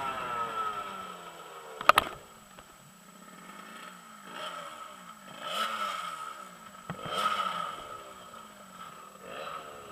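Pocket bike's small two-stroke engine revving up and dropping back again and again as it is ridden through corners. A sharp double knock about two seconds in.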